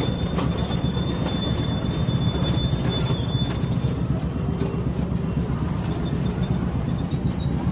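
Steady low rumble of roadside street noise, with a thin high whine that stops about four seconds in.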